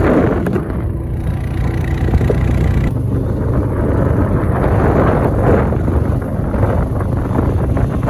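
Quad (ATV) engine running steadily while riding, with wind buffeting the microphone.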